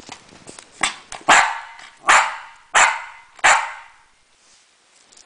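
Havanese dog barking four times in an even run, about one bark every 0.7 s, counting out the answer to "two times two" on cue.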